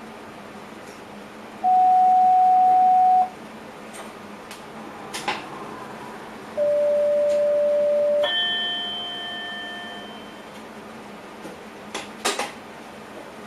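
Electronic alert tones in a train driver's cab. There are two long steady beeps, the second a little lower, and right after the second a chime rings and fades over a couple of seconds, with a few sharp clicks over the steady cab hum.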